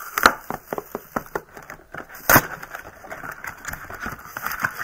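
A cardboard Yu-Gi-Oh trading-card value box being opened by hand: a run of small crackles and clicks of handled packaging, with two sharper snaps, one just after the start and one about two seconds in.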